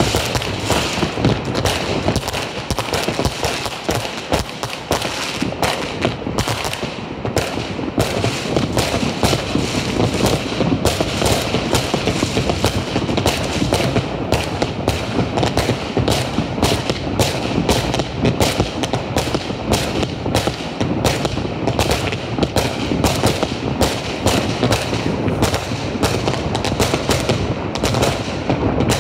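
Many fireworks and firecrackers going off at once: a dense, continuous barrage of bangs and crackles with no pause.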